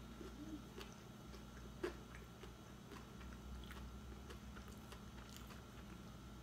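Faint close-up chewing and biting of a shrimp po' boy: soft scattered clicks and crunches of bread, with one sharper click about two seconds in.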